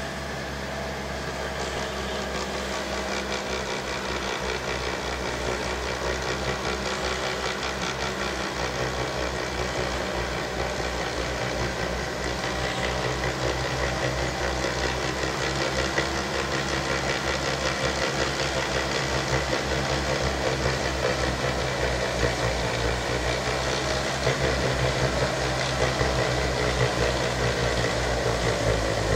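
Compact tractor engine running steadily under load, driving a rear-mounted snow blower that is clearing and throwing snow; the sound grows gradually louder as the machine approaches.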